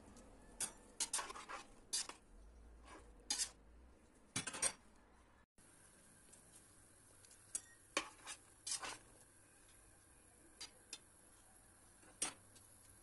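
Stainless steel pot of unripe green figs boiling in water: faint, irregular clicks and light knocks, a few at a time, over a low steady background. The sound drops out for a moment a little before halfway.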